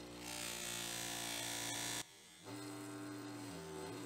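Bench grinder motor running with a steady electric hum, driving a cloth buffing wheel. For the first two seconds a small steel ratchet part pressed against the wheel adds a loud bright hiss, which cuts off suddenly, leaving the motor hum.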